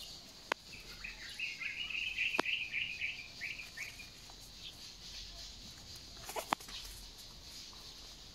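A bird chirping in a quick warbling run of notes for about three seconds, starting about a second in. A few sharp clicks sound separately, the loudest about six and a half seconds in, over a faint steady high hiss.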